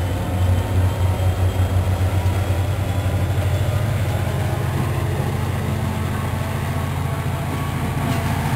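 Metro-North GP40FH-2 diesel locomotive passing close with a pulsing low engine rumble, which settles after about three seconds into the steadier rumble of the Comet passenger coaches rolling by behind it.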